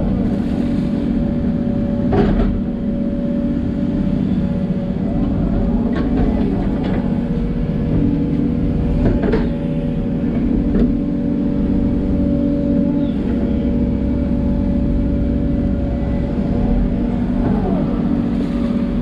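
Hidromek 140LC excavator's diesel engine running steadily under work, with a few short knocks from the machine as it digs.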